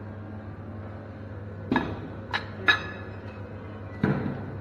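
Dishes and serving utensils clinking: three sharp clinks with a short ring in the second half, then a heavier clatter near the end, over a steady low hum.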